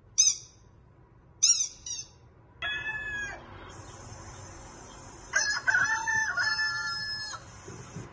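A string of played-back sound effects for a dog's head-tilt test: three short high squeaks in the first two seconds, a brief call that falls at its end about two and a half seconds in, then a rooster crowing for about two seconds from about five seconds in.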